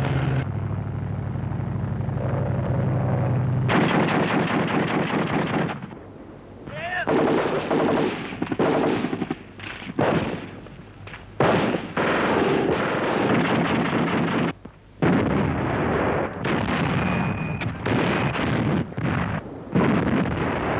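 Rapid automatic gunfire in long bursts broken by short pauses, growing dense about four seconds in, with a low steady hum underneath at the start.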